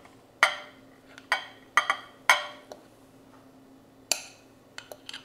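Metal spoon clinking against a glass food container while cooked rice is scooped onto a plate: sharp ringing clinks, four strong ones in the first two and a half seconds, then a lighter cluster of clinks near the end.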